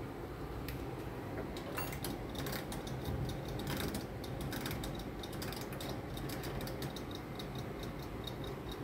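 An oven's mechanical timer dial clicking and ticking as it is turned and set, a rapid even train of small clicks, over a steady low hum.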